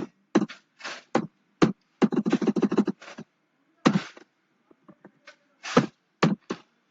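Computer keyboard typing in quick bursts of key clicks, with pauses and single key taps between the runs.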